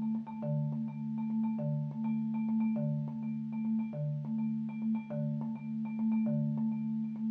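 Marimba and vibraphone played together by one percussionist: a quick, repeating mallet pattern, with a low note recurring about once a second over a tone that rings on underneath.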